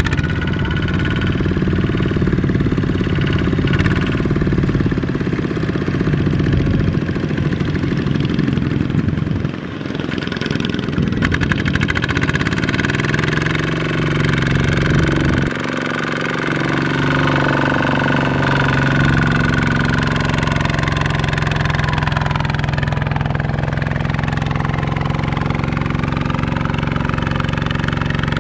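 Kubota ZT155 single-cylinder diesel engine of a two-wheel walking tractor running under load as it drags a loaded trailer through mud. Its note dips briefly about ten seconds in, shifts over the next few seconds, then settles into a steady run.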